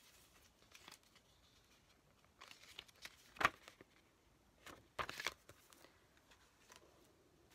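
A folded paper leaflet being unfolded and handled, rustling and crackling in a few short bursts, the loudest about three and a half seconds in.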